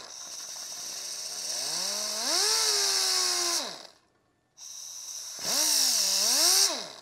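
Air-powered die grinder with a thin abrasive disc, sharpening a TIG tungsten electrode: it runs twice, each time spinning up with a rising whine over a loud air hiss and then winding down. The first run lasts about four seconds; the second starts after a short pause and stops near the end.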